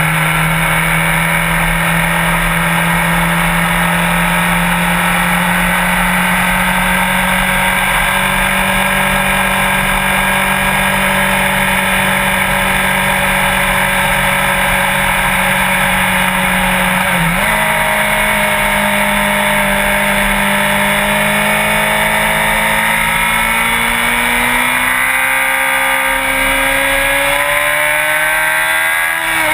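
Sport motorcycle engine running under way, its pitch steady for most of the stretch with a brief hitch a little past halfway. The revs then climb over the last few seconds and drop off sharply at the very end.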